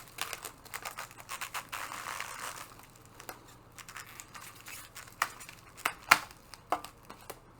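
Packing material in a shipping box being rummaged and pulled apart: dense rustling and crinkling of shredded packing peanuts for the first few seconds, then scattered sharp clicks and knocks, loudest about six seconds in.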